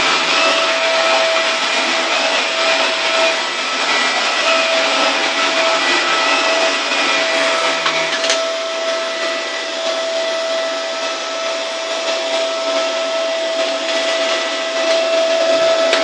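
Dyson DC24 Multi Floor upright vacuum cleaner running steadily while pushed over carpet: a constant rush of suction with a steady whine over it.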